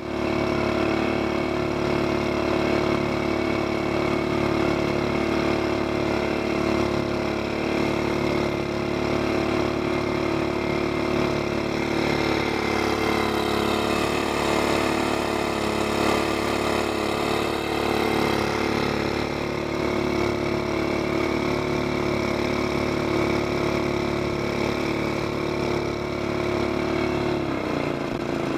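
Mud motor engine driving a jon boat upstream at steady throttle, over the rush of water along the hull. Its pitch sags slightly midway, and the engine throttles down near the end.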